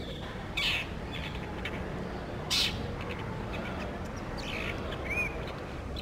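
Brown shrike giving short, harsh calls, four of them spaced through a few seconds, the second the loudest, over a steady low rumble.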